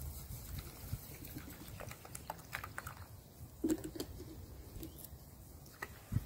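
Water poured from a plastic bottle into a small stainless-steel pot of dry quinoa, with light clicks and patter of the grains. There is a short low sound about midway, and a wooden spoon knocks in the pot as stirring starts near the end.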